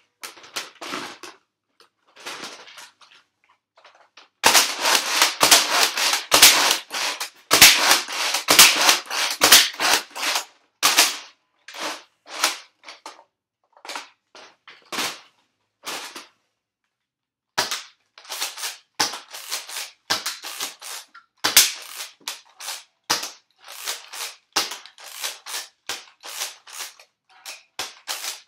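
Nerf toy blasters firing foam darts, a string of sharp pops and clacks. A few seconds in comes a dense, loud run of rapid shots; after that the shots come singly or a few at a time.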